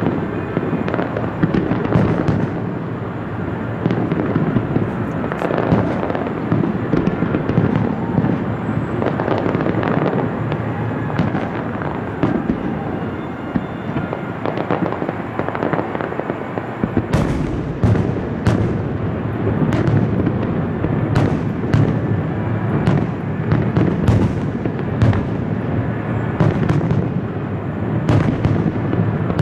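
Aerial fireworks display: a continuous run of shell bursts, deep booms overlapping one another, with sharp cracks coming thick and fast from a little past halfway.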